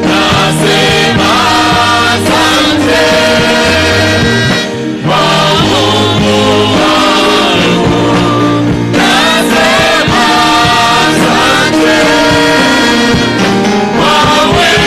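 Gospel music: sung vocals over instrumental backing with a steady bass line, briefly dipping about five seconds in.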